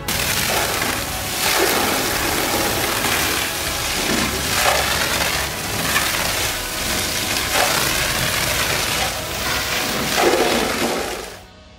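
High-pressure water jet, like a fire-brigade hose, hitting a truck cab's windscreen and sheet-steel body in a water-leak test. A loud hiss and splatter that swells and eases several times, then cuts off suddenly near the end.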